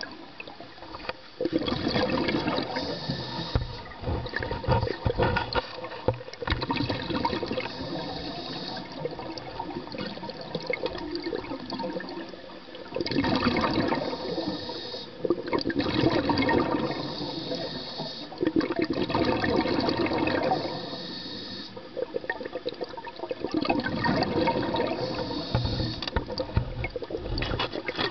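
Scuba diver breathing through a regulator underwater: a hissing inhale and a rush of bubbling exhaust bubbles, repeating in a regular cycle about every five or six seconds.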